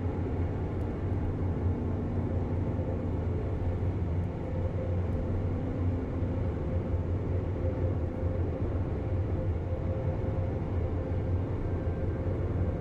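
Steady road and engine noise of a Ford Super Duty pickup cruising at highway speed, heard from inside the cab: an even low rumble that neither rises nor falls.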